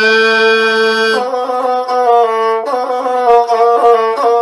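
Gusle, the Balkan single-string bowed fiddle, playing an interlude between sung verses. A long held note gives way about a second in to quick, ornamented melodic phrases.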